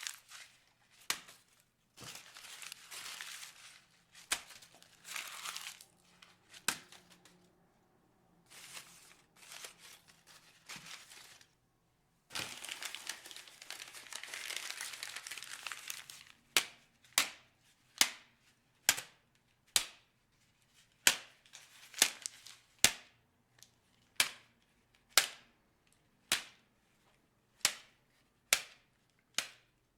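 White printer paper handled in bursts of crinkling and rustling for about the first half, then a series of sharp paper snaps, about one a second.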